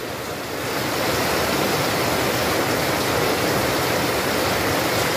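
Catfish sizzling as it fries in hot oil in a wok: a steady hiss that grows louder during the first second.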